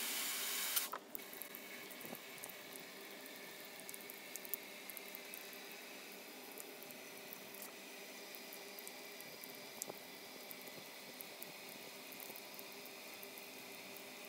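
Heavy water splashing down onto a plastic rain gauge and a wooden deck railing: a steady hiss of splashing with scattered sharp drip clicks, louder for about the first second.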